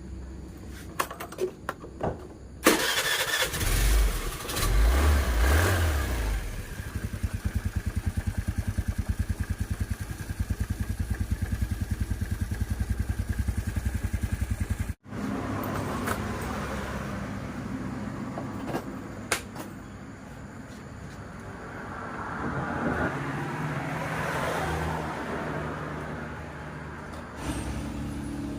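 Honda Vario scooter's single-cylinder four-stroke engine starting about three seconds in and running with a fast, even beat. After an abrupt break it runs again and briefly rises in speed as it is revved.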